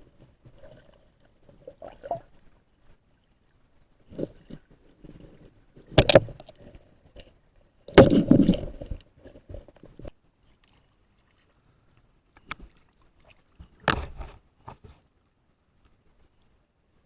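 Water sloshing and splashing with scattered irregular knocks; the loudest come about six, eight and fourteen seconds in.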